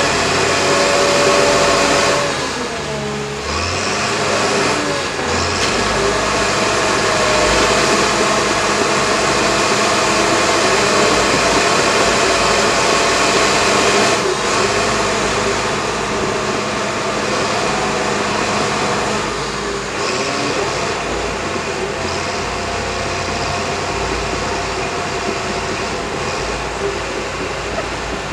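Crawler dozer's diesel engine running under load, heard from on the machine: a loud, steady drone with a held whine that shifts a little in pitch, easing off briefly about two to three seconds in before pulling hard again.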